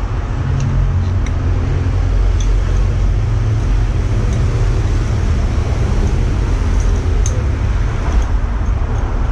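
Steady, loud low rumble with an even hiss over it, of the kind passing road traffic makes, with a few faint light ticks scattered through it.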